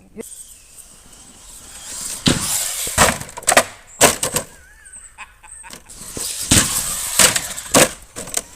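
Traxxas Slash 4x4 RC truck running over rough ground, with two spells of tyre and gravel noise. Each spell is followed by several sharp knocks of the truck hitting and bouncing on the ground.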